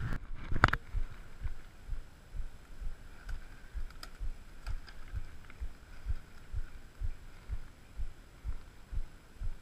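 Muffled low thumps at an even pace of about two a second, with a sharp click just under a second in.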